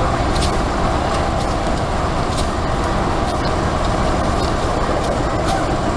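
CC206 diesel-electric locomotive engine running as the locomotive rolls slowly along the track: a steady, loud rumble with a few faint clicks over it.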